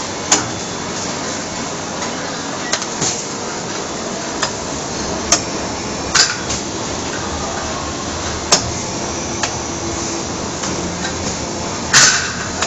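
Steady factory-floor background noise with scattered sharp knocks and clatter, the loudest knock near the end.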